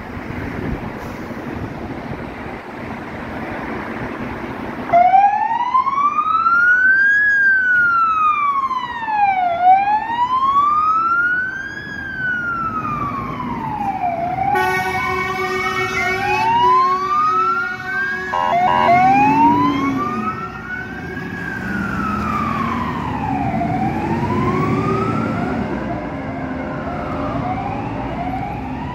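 Fire-engine siren wailing in a slow rise and fall, about one sweep every two and a half seconds, starting about five seconds in after truck engine noise. Around the middle, a two-tone Martin air horn sounds for a few seconds over the wail.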